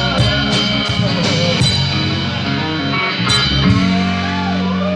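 Live rock band playing: electric bass, acoustic and electric guitars and a drum kit. The drumming stops after about two seconds, one more hit comes a little past three seconds, and the band then holds a ringing chord.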